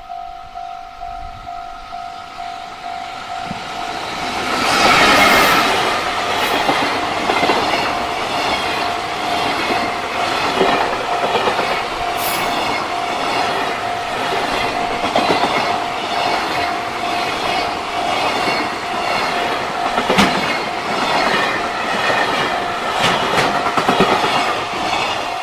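A level-crossing warning bell rings steadily. From about four seconds in, a long freight train passes close by with a loud, rhythmic clickety-clack of its wheels over the rail joints.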